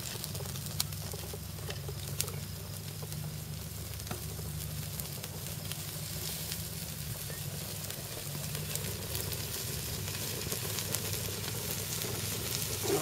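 Butter-glazed chicken pieces sizzling on a wire grill over hot glowing coals, a steady crackle with a few sharper pops in the first couple of seconds.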